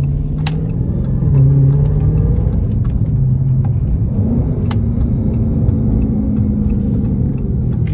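Dodge Charger SRT's HEMI V8 running while the car drives at city speed, heard from inside the cabin: a steady low engine drone with road noise, its pitch shifting about halfway through. A few faint clicks sound over it.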